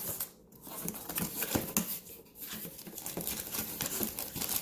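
A cardboard box being torn open and its packaging handled, with tearing and crinkling sounds and scattered small clicks.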